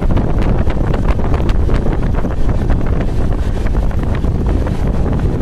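Indian Railways Konark Express passenger train heard from aboard at speed: a loud, steady rush of wind on the microphone over the low rumble of the moving coaches, with frequent irregular clicks and knocks from the wheels and track.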